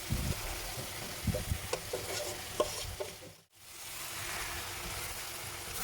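Vegetable filling sizzling in a pan of hot oil while it is stirred, with short knocks and scrapes of the stirring utensil against the pan. The sound drops out briefly about halfway through.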